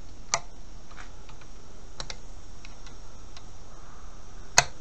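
Scattered light metal clicks and taps as locking grips are handled and set on a steel strip clamped in a vise. The sharpest, loudest click comes near the end.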